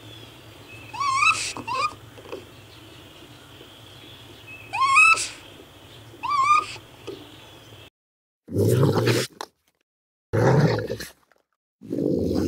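Raccoon calls. First come short whistled chirps that rise and then bend down, in three bouts over a steady background hum. After an abrupt change of recording about 8 s in, three harsh growling calls follow, each under a second long, with silence between them.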